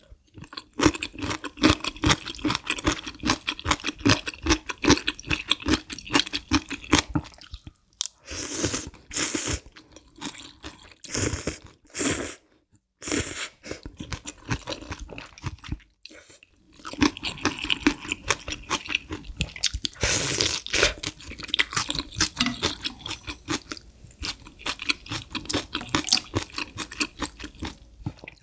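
Close-miked eating of spicy malatang noodle soup: rapid, crunchy, wet chewing. In the middle comes a run of separate short slurps of noodles and broth from a wooden spoon, then steady chewing again.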